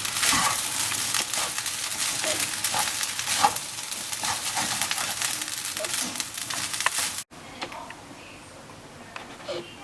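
Cooked basmati rice with chicken and vegetables sizzling in a hot pan while being stirred and tossed, with many sharp spatula scrapes and clicks. The sizzle cuts off suddenly about seven seconds in, leaving a much quieter background with a few light clicks.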